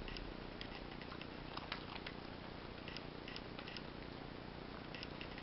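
Belgian Shepherd mix puppy licking and mouthing a raw carrot: scattered soft crunches and wet clicks over a steady hiss.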